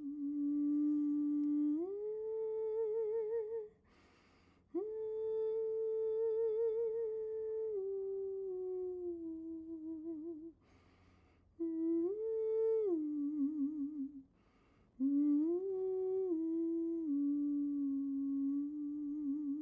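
A woman's voice humming a slow, wordless melody with vibrato, in long held phrases that step up and down, broken three times by audible breaths.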